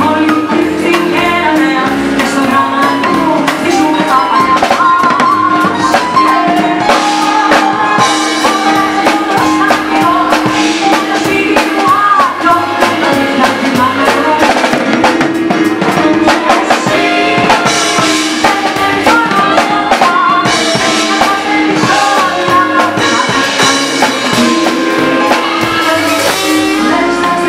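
Live band playing a bossa nova song, with a drum kit keeping a steady beat under saxophone and other instruments, and a woman singing at times.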